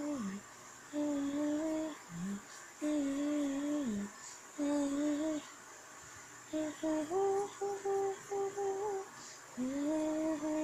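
A person humming a slow tune: long held notes of about a second each with short pauses between, then a run of shorter, higher notes a little past halfway, ending on a rising held note.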